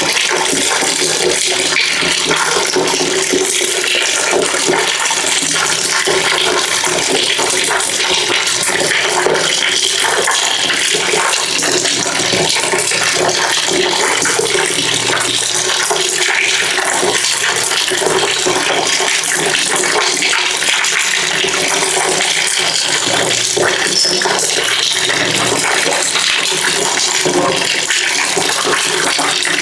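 Water pouring into a bucket, a steady continuous splashing.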